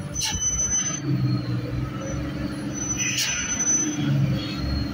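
Loaded Hino truck's diesel engine running at low speed, with its brakes squealing high twice, about a second each time, the first near the start and the second about three seconds in, each beginning with a short hiss.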